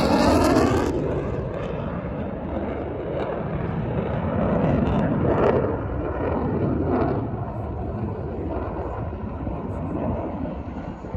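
F-35's single F135 afterburning turbofan jet engine flying past, with a sweeping, phasing tone in the first second as it goes by, then a steady jet rumble that rises and falls as it moves away.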